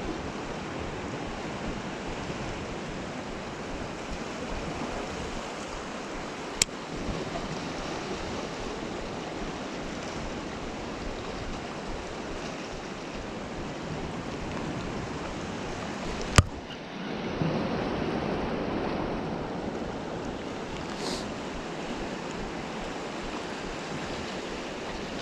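Ocean surf washing against rocks, a steady rushing wash that swells louder for a few seconds about two-thirds of the way through. Two sharp clicks stand out, one about a quarter of the way in and one just before the swell.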